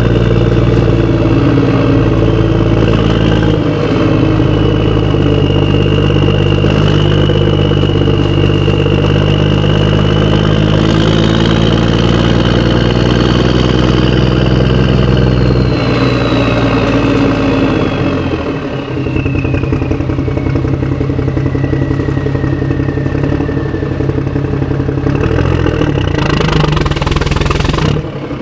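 Motorcycle engine running steadily, its pitch drifting slowly up and down. About two-thirds of the way through it drops to a lower, pulsing note, as if easing off toward idle.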